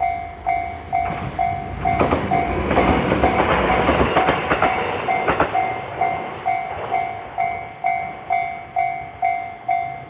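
Japanese railway level-crossing alarm bell ringing about twice a second. A Sotobo Line train passes over the crossing from about two seconds in, its wheels clacking over the rail joints, and fades by about six seconds. The bell keeps ringing and cuts off right at the end.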